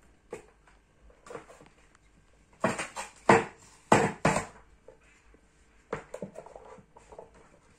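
Lever-action French fry cutter pressing a peeled purple truffle potato through its blade grid: a cluster of loud sharp strokes lasting under two seconds about three seconds in, with lighter knocks of the lever before and after.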